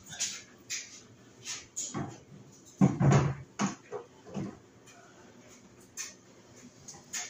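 Renin barn door's hanger rollers running along the overhead track as the door is slid across the opening, with a series of clicks and knocks and a louder rumbling bump about three seconds in.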